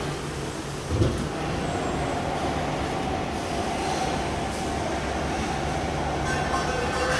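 Industrial machinery running steadily, with a single thump about a second in and a steady whine from then on.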